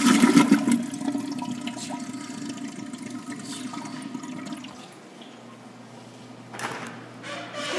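Toilet flushing: loud rushing, swirling water that dies down over about five seconds into a quieter steady hiss, with a couple of brief knocks near the end.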